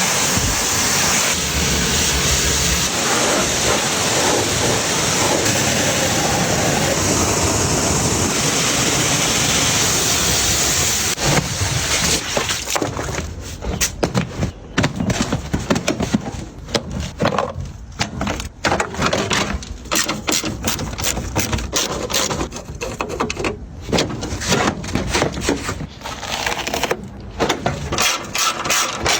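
A steady rushing hiss for about eleven seconds, then a run of irregular knocks, scrapes and short bursts of tool noise from bodywork on a car.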